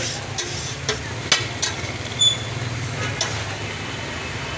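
Egg-coated shami patties frying on a flat iron griddle, with a light sizzle and a few sharp metallic taps as they are moved and stacked, the clearest about a second in. A steady low traffic hum runs underneath.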